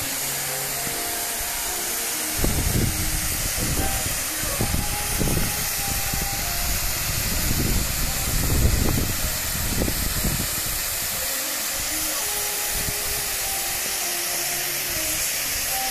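Ground-based spark fountains hissing steadily as they spray sparks, with irregular low rumbles through the middle stretch.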